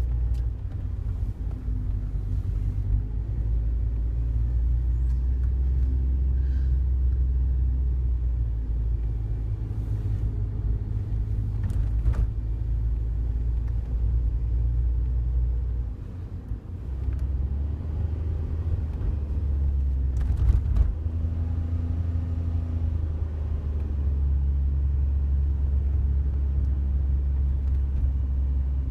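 Daihatsu Wake driving, its cabin filled with a steady low road and engine rumble, with a few sharp clicks or creaks scattered through, the clearest near the middle and about two-thirds of the way in. The clicks are an abnormal noise from the passenger-side dashboard and its left side, which grows louder with vibration.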